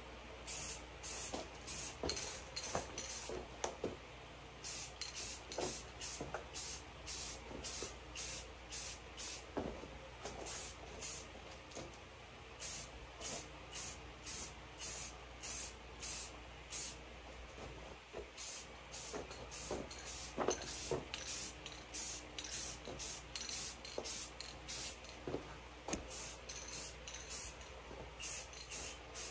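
Aerosol rattle can of dark camo spray paint hissing in many short bursts, about two a second, in runs with brief pauses between, as light coats go on.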